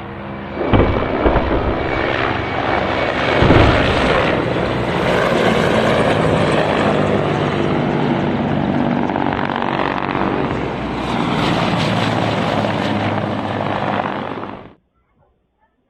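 Attack helicopters passing low and loud: heavy rotor and turbine noise with a throbbing low hum. Sharp loud blasts break in about a second in and again around three and a half seconds, and the noise cuts off abruptly about a second before the end.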